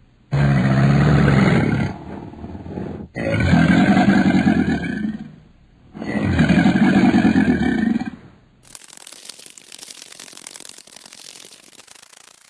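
A large animal roaring three times, each call deep, pitched and about two seconds long. A little before the end the roars stop abruptly and a fainter, steady crackling noise takes over.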